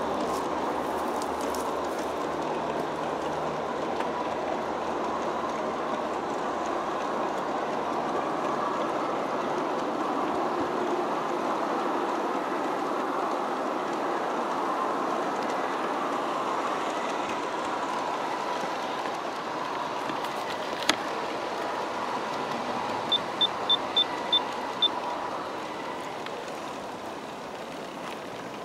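Long G-scale model freight train rolling on garden-railway track, a steady rolling rattle of many cars' wheels on the rails. Past the middle comes one sharp click, then a quick run of six short high ticks.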